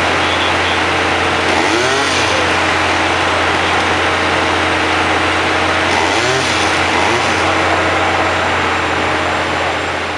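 Construction machinery engines running steadily on a work site: a loud, even noise over a low hum, with a few faint voices. It fades out near the end.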